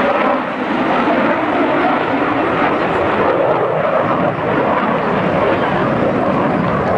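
F-16 fighter jet flying its display at a distance, its engine heard as a loud, steady rushing jet noise.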